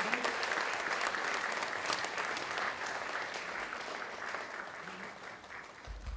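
Audience applauding, many hands clapping, dying away near the end with a brief low thump just before it stops.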